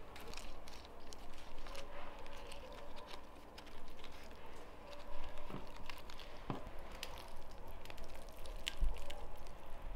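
Hands pulling apart a whole roast chicken: moist tearing of the meat and crackling of the roasted skin, with scattered small clicks and two soft knocks about halfway through.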